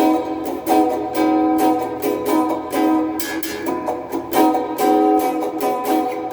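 Donner DST-80 Strat-style electric guitar played clean through its small included practice amp with hall reverb: a run of strummed chords and picked notes, with a fresh attack every half second or so.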